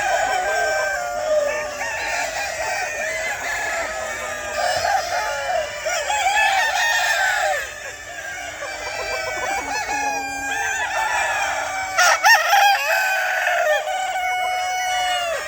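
A flock of chickens clucking and calling over one another, with a short sharp knock about twelve seconds in.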